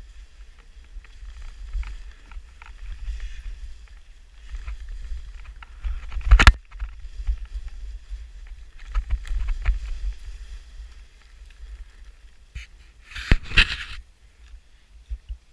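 Skis scraping and chattering over chopped-up snow, with wind buffeting the microphone as a steady low rumble. Two loud knocks stand out, about six seconds in and again near the end. The sound drops off sharply just before the end.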